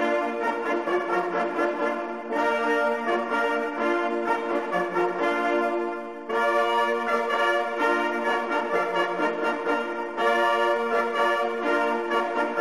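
Hunting horns blown together over the laid-out game, the closing horn signals of a driven wild boar hunt. Long held notes in phrases, with a short break about every four seconds.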